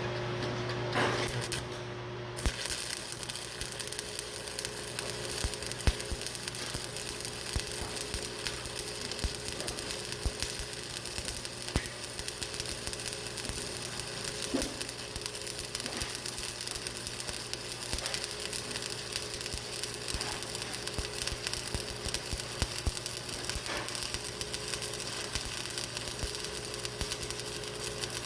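Electric arc welding a bead on the steel self-leveling arm of a tractor loader: a steady crackling sizzle that starts suddenly about two seconds in and runs on without a break, over a steady low hum.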